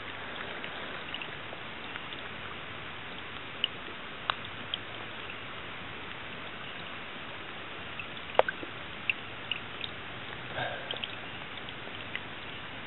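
Wood frogs calling in a pond at night: scattered short clucks and clicks over a steady hiss. A sharp click about eight seconds in is the loudest, and a brief low cluck comes a couple of seconds later.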